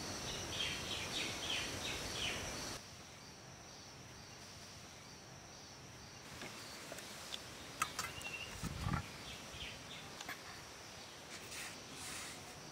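A steady high insect drone with birds chirping. A quick run of repeated chirps fills the first couple of seconds, then a quieter stretch follows with scattered faint chirps, clicks and a soft thump about two-thirds of the way through.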